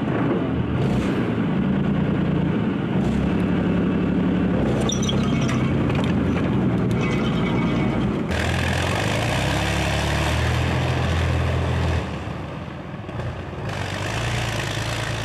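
Engine of a tracked armoured vehicle running steadily with a deep hum. The sound shifts abruptly twice, about eight and twelve seconds in.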